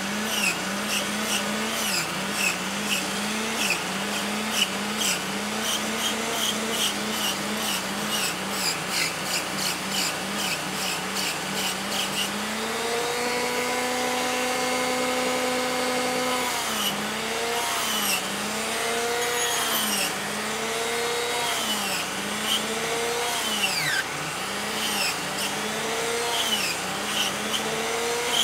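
Dremel rotary tool on a flexible shaft texturing wood. Its motor whine drops in pitch and recovers each time the bit bites in, over and over, about once a second. Around the middle it runs steady for a few seconds at full speed.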